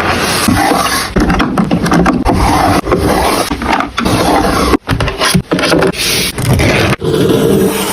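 Close-miked scraping and rustling of paper being handled, in loud runs broken by short pauses.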